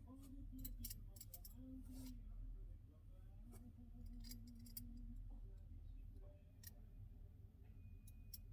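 Near silence: low room hum with scattered faint clicks and taps.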